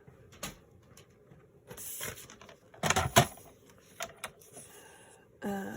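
Paper being handled and cut with a craft blade: rustling and light clicks and taps, with a louder scraping stroke about three seconds in.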